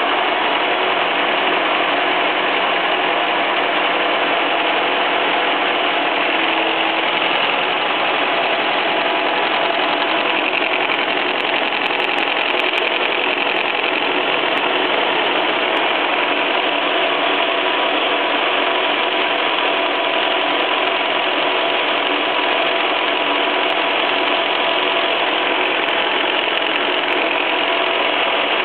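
Milling machine running steadily while cutting metal: a constant mechanical noise with a few faint steady tones running through it.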